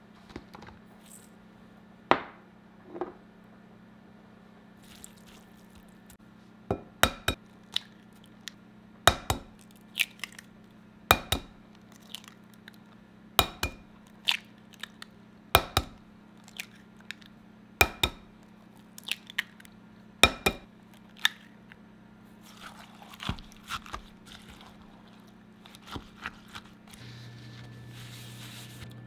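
Kitchen utensils and bowls knocking and clinking during food preparation: sharp taps, mostly in pairs about every two seconds, over a steady low hum that gets louder near the end.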